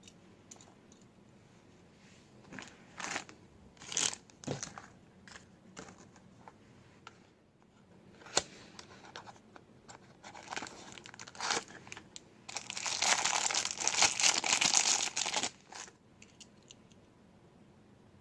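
Toy packaging being torn open and crinkled by hand. It starts with scattered short rustles, then a sharp click, then a loud stretch of steady crinkling for about three seconds near the end.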